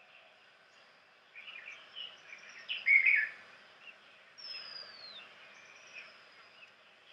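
Songbirds singing: a run of quick chirping notes that grows loudest about three seconds in, then a thin whistle sliding down in pitch.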